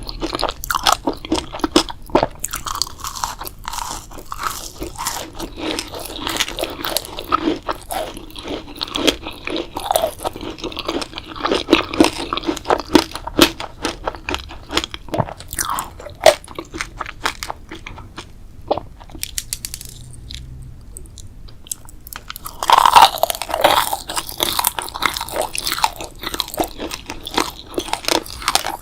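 A person biting and chewing crunchy food close to the microphone, with a dense run of sharp crunches and crackles. It goes quieter for a few seconds past the middle, then comes back louder with a burst of crunching.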